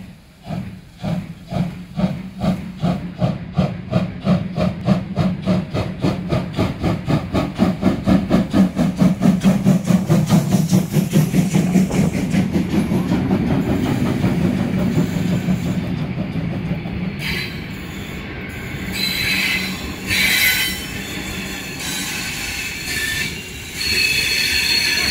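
DR class 52 two-cylinder 2-10-0 steam locomotive working a train past: loud exhaust chuffs that quicken from about two to about four a second as it gathers speed, merging into steady rolling noise as the coaches go by, with a high wheel squeal near the end.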